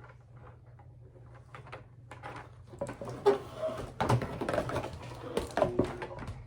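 Plastic rustling and clattering with sharp clicks as foam darts and plastic blaster parts are handled. It is faint at first and grows busier and louder from about three seconds in.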